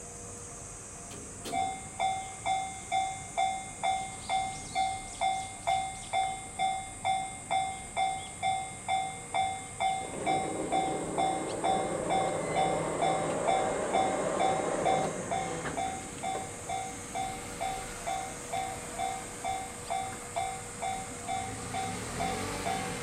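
Japanese level-crossing warning bell starts ringing about a second and a half in, with evenly repeated strikes a little over two a second. About ten seconds in, a train rumbles through the crossing for roughly five seconds while the bell keeps ringing.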